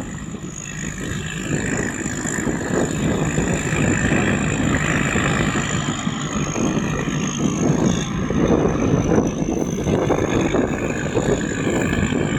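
Rice combine harvester running, its engine and threshing machinery making a steady dense noise with a thin high whine above it.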